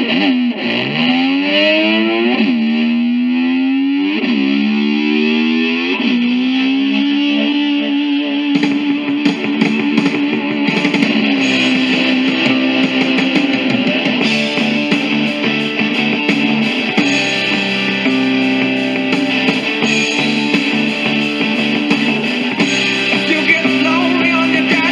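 Distorted electric slide guitar imitating a motor scooter revving: swooping glides up in pitch about every two seconds, settling into a held note, then drums and bass come in at about eight and a half seconds and the rock band plays on.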